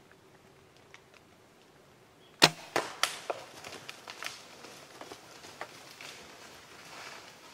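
A bow shot at a deer: one sharp, loud snap of the bowstring and arrow about two and a half seconds in, then two more cracks right after and a run of smaller snaps and rustles as the deer bolt off through the leaves and brush.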